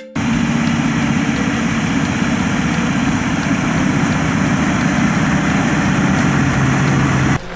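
Heavy logging truck engine running steadily. The sound starts and cuts off abruptly.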